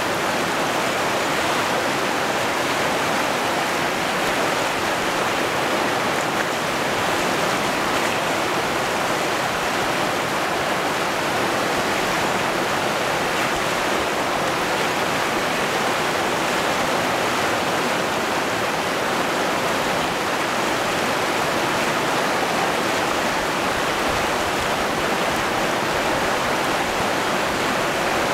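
Whitewater rapids of a rocky river rushing steadily, an even, unbroken wash of water noise.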